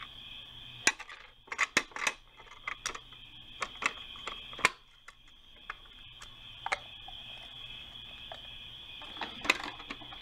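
Hard plastic clicks and clacks of a Playmobil toy garbage truck and its yellow bin being handled: the bin is hooked onto the rear lift, tipped and unclipped. Irregular sharp clicks, with a quick cluster between one and two seconds in, a single knock near the middle and another near the end.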